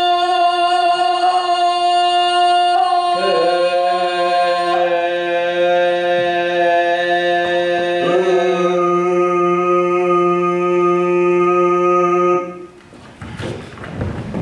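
Voices holding long, steady sung notes that stack into a chord, a lower note joining about three seconds in, all cutting off together about twelve and a half seconds in. Near the end come a few knocks of wooden chairs being moved.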